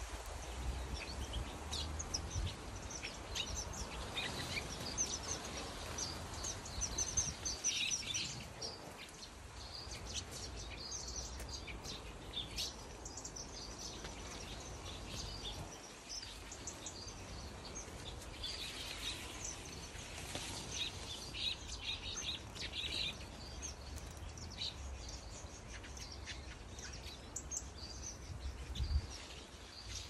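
Small aviary birds, a mix of finches and softbills, chirping and calling: many short high chirps from several birds, bunched in busy spells, over a low rumble.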